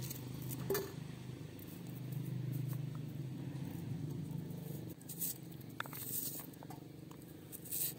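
Knife slicing a red onion and fingers peeling garlic cloves: a handful of short, crisp cuts and clicks. Under them a steady low hum that drops away about five seconds in.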